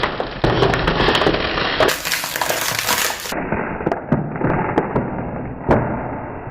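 Plastic water bottle being crushed and crumpled by hand: a dense run of crackling with sharp cracks scattered through it.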